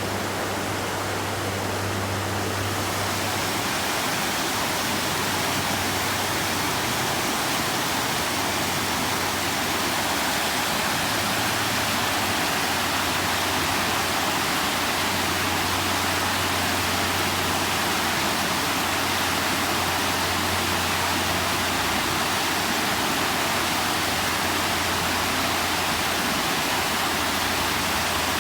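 Steady rushing of a storm-swollen creek in flood: a dense, unbroken wash of fast-flowing water.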